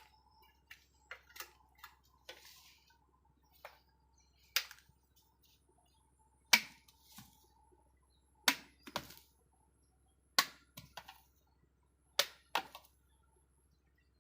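A blade chopping a peeled sugarcane stalk into pieces: sharp cracking strikes every second or two, about seven loud ones with quieter taps between.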